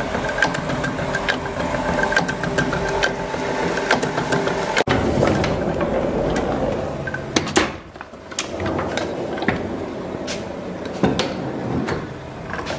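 Letterpress cylinder press running, its inking rollers turning and its mechanism clattering with many quick clicks. The sound drops briefly about two-thirds of the way through, then picks up again.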